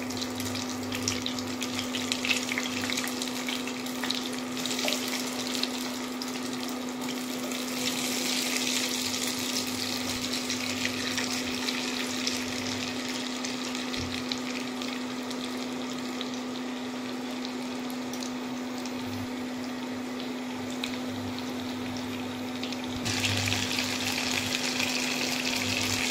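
Chicken pieces shallow-frying in hot oil in a nonstick wok: a steady sizzle with crackles of spitting oil. It grows louder about eight seconds in and again, abruptly, near the end. A steady hum from the induction cooktop runs underneath.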